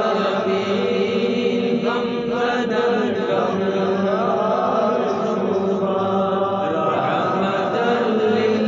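Religious chanting by a voice in long, drawn-out melodic notes that glide slowly from pitch to pitch without a break.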